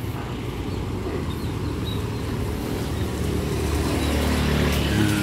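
Suzuki Carry 1.0 van's four-cylinder engine idling steadily, louder from about three seconds in.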